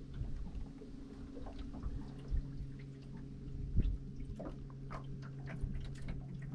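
Water dripping and lapping in small irregular splashes, over a steady low hum, with one dull thump just before four seconds in.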